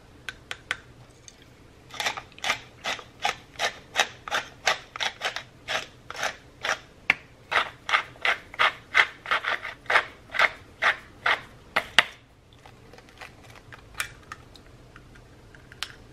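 Hand pepper mill grinding black pepper over a bowl: a run of regular crunchy twists, about two a second for some ten seconds, then a few light clicks.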